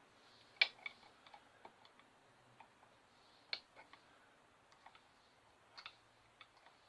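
Faint, irregular small clicks and ticks of a small screwdriver working the stiff, stuck impeller of a Thetford C2 toilet's electric flush pump, the fault behind the toilet not flushing.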